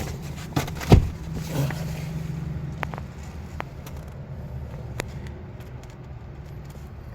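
A car door shut with a single heavy thump about a second in, followed by a few light clicks, over a steady low rumble.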